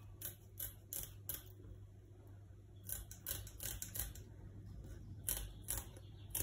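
Scissors snipping through a catfish's dorsal fin: a series of short, sharp clicks, a few in the first second and a quicker run of them about three to four seconds in.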